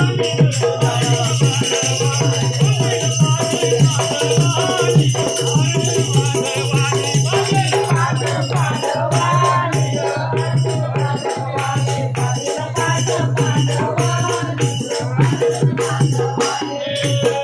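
Marathi devotional song music: rhythmic percussion with a shaken, rattling sound keeps a steady beat over a steady low drone.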